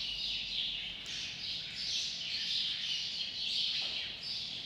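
Small birds chirping continuously: short, high chirps, many falling in pitch, about three a second.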